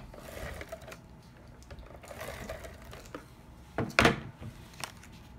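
Paper and cardstock handled on a wooden tabletop: soft rustling and scraping, then a few sharp knocks about four seconds in, the loudest a close double knock.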